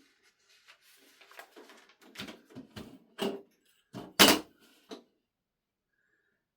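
Handling noises: a string of small clicks and knocks, with two louder knocks about four seconds in.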